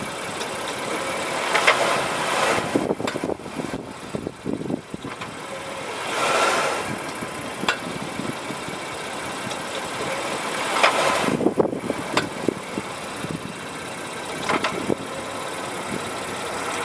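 Car running with its engine idling, with three swells of rushing noise and scattered clicks and knocks; the car's brake noise is what is being recorded.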